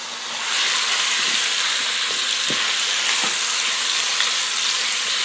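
Chicken breast cubes sizzling in hot oil and browned curry in the Ninja PossibleCooker's pot on sear/sauté, the sizzle swelling about half a second in. A silicone spatula scrapes the pot now and then as the chicken is stirred.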